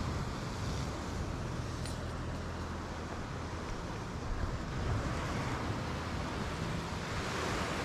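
Ocean surf washing on the rocky shore, with wind buffeting the microphone as a steady rushing and low rumble.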